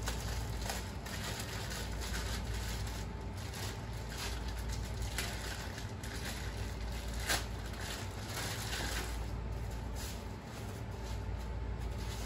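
Plastic bag and paper wrapping crinkling and rustling as a new connecting rod is unwrapped by hand, with one sharper click about seven seconds in. A steady low hum runs underneath.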